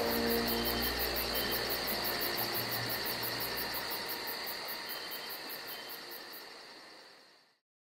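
Ambient background bed of steady hiss with a high, rapid pulsing (about five a second) and a faint low rumble, fading slowly to silence shortly before the end; the last notes of a music cue die away in the first second.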